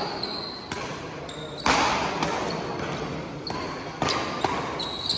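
Badminton rally: a string of sharp racket strikes on the shuttlecock, the loudest about a second and a half in, ringing on in the hall, with brief high squeaks of shoes on the court mat.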